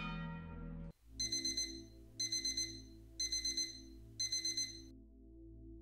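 Aiwa digital clock radio's alarm beeping: four bursts of four quick high beeps, about one burst a second. A ringing tone cuts off just before the beeps start, and a soft, steady musical drone runs underneath.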